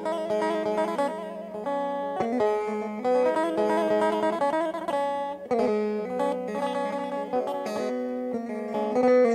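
Instrumental break of a Turkish folk song: a bağlama (saz) plays the melody with backing, without singing.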